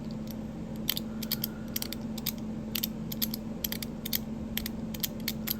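Non-magnetic zirconium fidget slider (Metal Toyz DZ TopB, fitted with ceramic and Teflon plates) being slid back and forth by hand: a run of light, irregular clicks.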